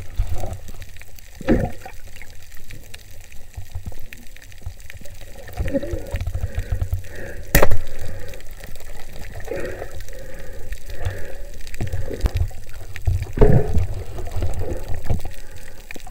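Underwater sound of a diver swimming with a speargun: a low rumble of water moving against the camera housing, with a few gurgles and swishes, and one sharp click about halfway through.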